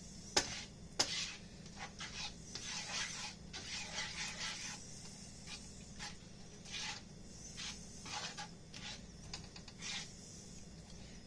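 Spatula scraping and stirring in a frying pan, scrambling an egg into fried rice, with a couple of sharp taps against the pan near the start.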